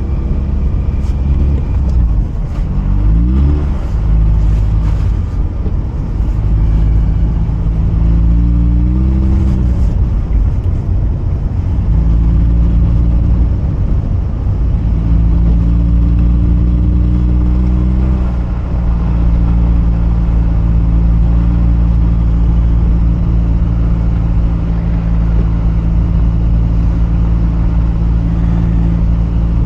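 Mazda RX-8's twin-rotor rotary engine accelerating through the gears. The pitch climbs and drops at shifts about three, nine and eighteen seconds in, then holds steady at a cruise.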